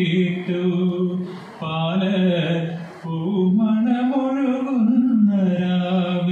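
A young man singing a slow Malayalam song solo and unaccompanied into a microphone, with long held notes that rise and fall in pitch and short breaths about one and a half and three seconds in.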